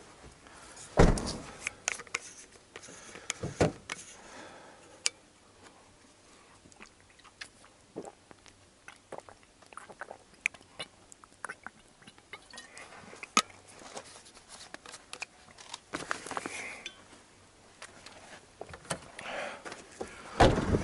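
Gear being handled around a pickup truck: scattered clicks, knocks and rattles, with heavy thuds about a second in, near four seconds and again near the end.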